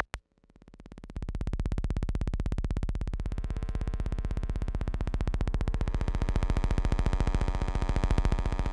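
Electronic soundtrack music: after a brief silence, a rapidly pulsing synthesizer drone fades in about a second in and then holds steady.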